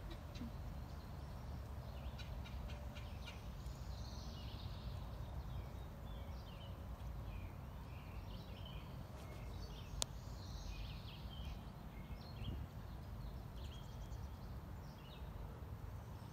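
Songbirds chirping and calling in short notes throughout, over a steady low outdoor rumble, with one sharp click about ten seconds in.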